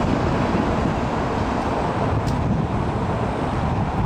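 Steady outdoor background rumble, with no firework bursts.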